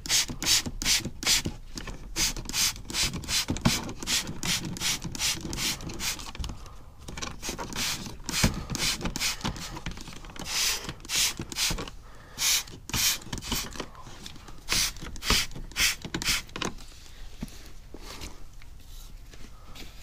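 Hand trigger spray bottle of bubble leak-detector solution squirted over and over in short hissing bursts, about two or three a second at first. After about seven seconds the squirts come fewer and a little longer, and they stop near the end.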